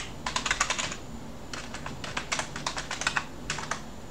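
Typing on a computer keyboard: quick runs of keystrokes with a short pause about a second in.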